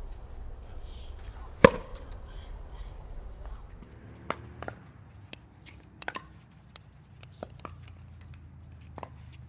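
A pickleball paddle striking the plastic ball on a serve: one loud, sharp pop about a second and a half in. It is followed by a scatter of fainter sharp pops and clicks.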